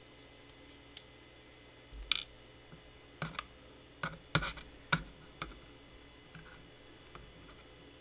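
Small metal parts of a disassembled padlock being handled on a desk: a series of sharp, irregular clicks and taps, most of them in the first five or so seconds.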